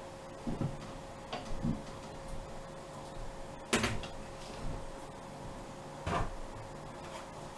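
A handful of short knocks and clunks as a slotted spoon strikes a cooking pot and a plastic bowl while meatballs are scooped from the hot water into cold water. The loudest knock comes about four seconds in, another about six seconds in, over a faint steady hum.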